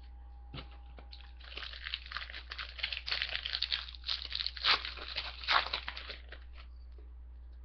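Crinkling and tearing of a foil trading-card pack wrapper being opened, a dense crackle for about five seconds with two louder rips near the end.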